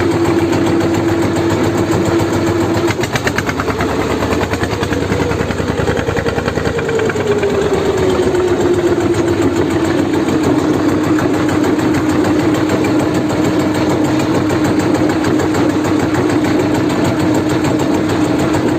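A small engine running steadily, speeding up about three seconds in, then slowing back down over several seconds and settling at a lower, steady speed.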